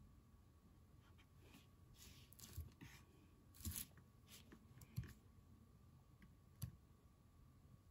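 Near silence: quiet room tone with a few faint clicks and brief scratchy strokes.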